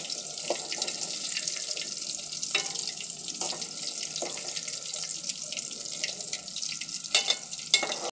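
Chicken kofta balls deep-frying in hot oil in an aluminium pot, a steady sizzle, with scattered clicks and scrapes of a slotted spoon against the pot as the koftas are turned. Two louder knocks come near the end.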